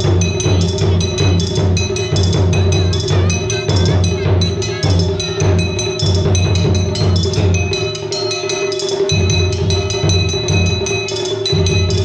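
Taiko drums played live in a fast, steady rhythm of evenly spaced strokes, with bright ringing metallic strikes over the drumbeats. The deep drum strokes drop out for about a second two-thirds of the way through, and again briefly near the end.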